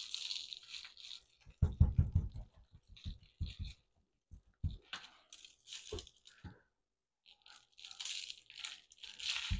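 Gloved hands patting and rubbing dry spice rub onto a frozen meatloaf on a foil-lined sheet pan: scratchy rustling and crunching with soft pats, the firmest pats about two seconds in.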